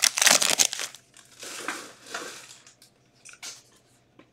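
Crimped foil trading-card pack being torn open and crinkled, loudest in the first second, followed by a few softer rustles as the cards are slid out and handled.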